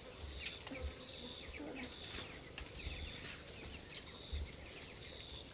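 Steady high-pitched insect chorus, like crickets, with a second insect trilling in short pulses about once a second.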